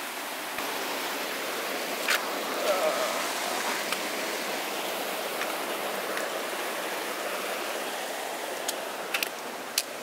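Steady rushing of a rocky mountain creek spilling over a small waterfall. A sharp tap comes about two seconds in, and a few more near the end.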